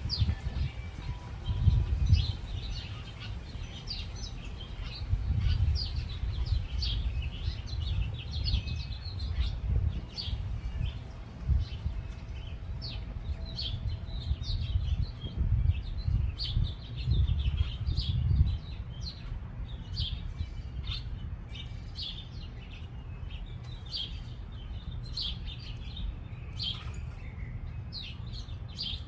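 Small birds chirping at a backyard feeder: many short, high chirps overlapping throughout. A low rumble comes and goes through the first two-thirds and is louder than the birds, then fades out.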